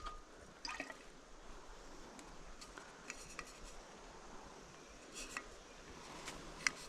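Faint, scattered small clicks and rustles, a few at a time, with one sharper click near the end.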